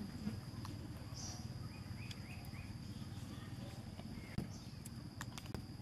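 Outdoor ambience: a steady high insect drone over a low rumble, with a few short chirps about two seconds in and scattered sharp clicks, more of them near the end.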